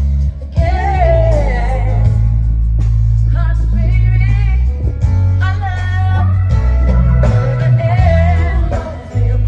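A live band with a female lead singer, amplified through stage speakers: heavy, sustained bass under a voice that slides and bends through its runs, with a brief drop in loudness near the end.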